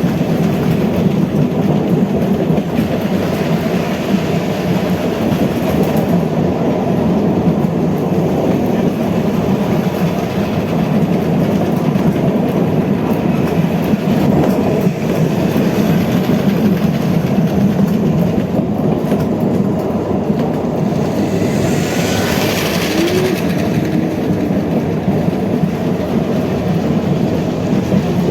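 Dubbed sound effect of a train running on rails: a steady, loud running noise, with a brief higher hiss about three-quarters of the way through.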